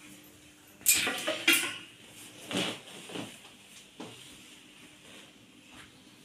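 Sharp clattering knocks: two loud ones in quick succession about a second in, then a few softer knocks.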